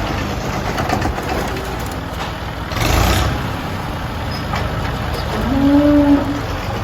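A vehicle engine running steadily with a low rumble and a brief louder surge about three seconds in. Near the end a short pitched tone rises and levels off for under a second.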